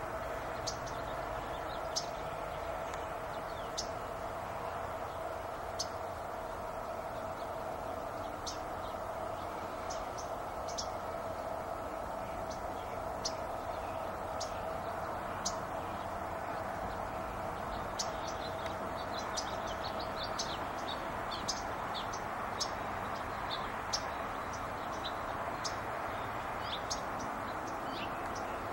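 Small birds giving short, high chirps, scattered at first and coming more often in the second half, over a steady background hum.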